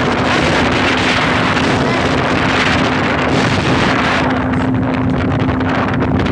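Motorboat under way, its engine giving a steady hum under heavy wind buffeting on the phone's microphone.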